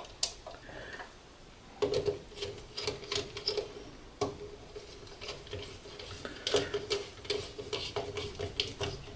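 Hands feeding a new wire into an electrical control enclosure and fitting it to a DIN-rail circuit breaker: a run of small clicks, taps and scraping of wire against plastic, busiest from about two seconds in.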